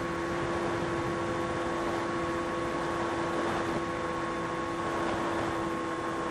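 FPV quadcopter's electric motors and propellers running at a steady speed: a held whine in several pitches over a rush of air.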